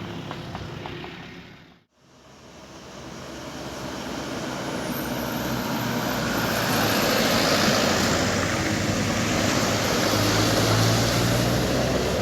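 A heavy bus drawing near: engine hum and road noise swell over several seconds and then hold steady and loud. Near the start the sound fades out to a brief silence.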